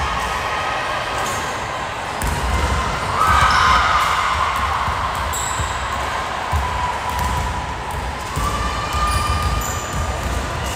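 Indoor volleyball play echoing in a large gym: ball strikes and thuds on the hardwood, with players' brief calls.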